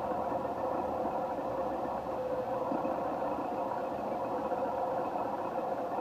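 Steady hum of road traffic in the background, picked up by a camera's built-in microphone through a foam-and-fur windscreen.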